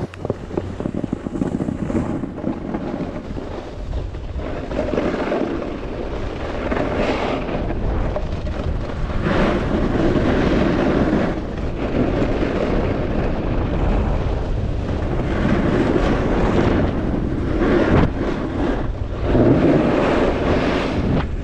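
Wind rushing and buffeting over a North Face jacket and the microphone during a fast snowboard run. The noise is loud and surges up and down every few seconds.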